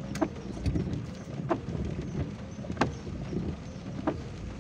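Inside a slow-moving car in the rain: the low rumble of the engine and wet road under a regular knock from the windscreen wiper, four evenly spaced knocks about one and a quarter seconds apart.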